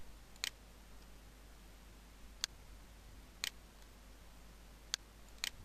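Computer mouse buttons clicking about five times at uneven intervals, over a faint low hum.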